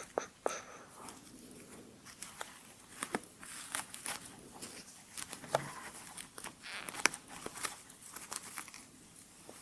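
Quiet, close-miked ASMR handling sounds: soft crinkling rustles and scattered light clicks of hands working near the microphone.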